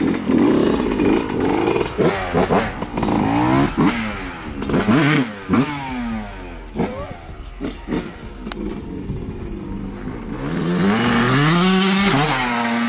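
Yamaha YZ125 two-stroke single-cylinder dirt bike engine revving hard, its pitch repeatedly rising and falling with throttle blips, then climbing in one longer rise near the end as the bike accelerates.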